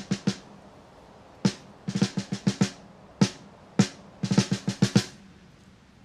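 Background music: drums alone, playing quick rolls and fills broken by short gaps.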